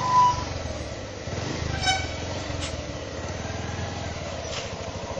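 A vehicle engine runs steadily, with a short high beep right at the start and a brief horn toot about two seconds in.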